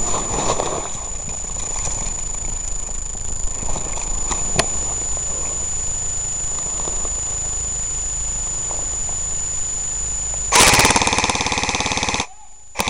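Low rustle of wind and handling noise on the camera microphone with a faint steady high whine. About ten and a half seconds in, a loud burst of rapid full-auto fire from an airsoft gun lasts under two seconds, and a second short burst follows near the end.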